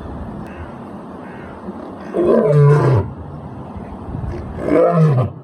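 Lion roaring: two loud calls about two and a half seconds apart, each under a second long and dropping in pitch at the end.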